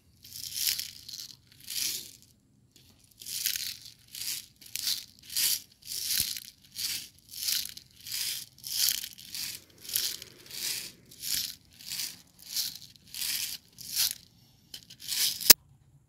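Steel BBs rattling inside a plastic BB speedloader shaken back and forth about twice a second, worked so the balls don't jam in its small opening. A single sharp click comes near the end.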